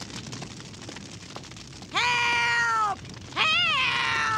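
Two long, high-pitched cries from a cartoon voice, each about a second long, the pitch held steady and then dropping at the end. The second follows about half a second after the first.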